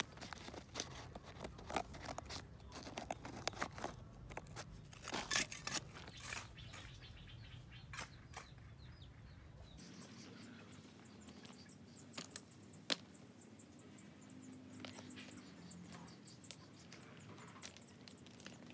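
Scissors snipping and crackling among leaves and soil in a plant pot, a close run of sharp clicks and rustles. About ten seconds in this gives way to a fast series of high chirps, around five a second, over faint rustling.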